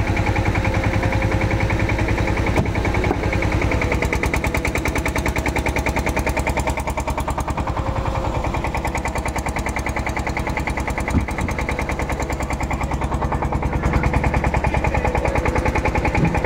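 An engine running steadily, with a rapid, even chugging and a steady whine above it.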